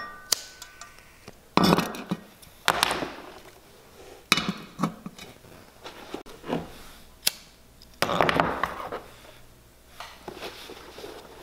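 Workbench handling sounds: clinks and knocks of metal hand tools and glass on a wooden bench, with a few short scraping strokes, as leather-edge burnishing tools are set up.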